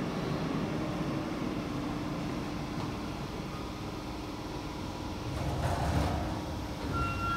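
Subway train pulling into the platform and coming to a stop, a steady low rumble of the running train. A brief hiss comes about six seconds in, and a high electronic tone starts near the end.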